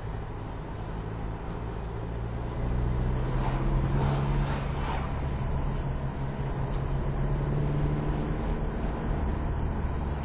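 Car engine hum and road noise heard from inside a moving car's cabin, getting louder about two and a half seconds in as the car pulls harder.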